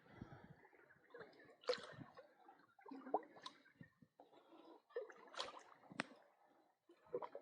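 Faint water splashing and dripping in irregular bursts, with a few sharp clicks and knocks.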